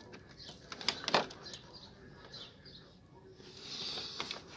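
Small plastic and metal clicks and rustling as a stuck H7 halogen bulb is wiggled and pulled out of a BMW E60 headlight housing by hand. There is a sharp click about a second in, and rustling near the end.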